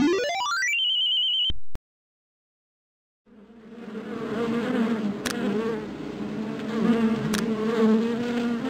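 A rising whistle-like glide that holds a high tone and cuts off, then a second and a half of silence, then a bee-buzzing sound effect fades in and drones on, wavering slightly. Two sharp clicks are heard in the buzzing, about two seconds apart.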